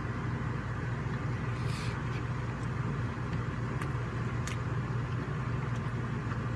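RV air conditioner running with a steady low hum and rushing noise, with a few faint clicks over it.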